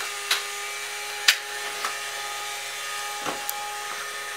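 A few sharp clacks of hard plastic toy parts being handled, the loudest about a second in, over a steady background hiss and hum.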